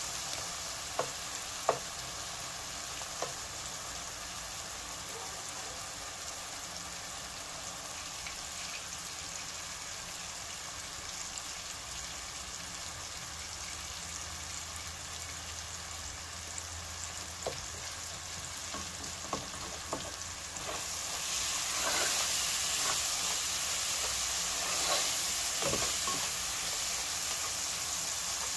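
Tomato, onion and bell-pepper masala sizzling steadily as it fries in a pot, with a few sharp taps of a spatula against the pot. The sizzle grows louder about two-thirds of the way through as the masala is stirred.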